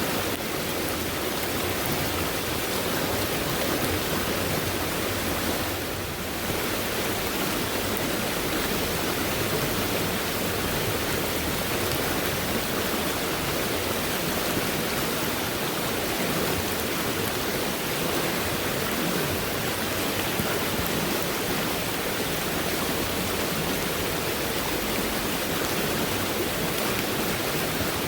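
Fast-flowing stream running high after heavy rainfall, the water rushing in an even, steady roar.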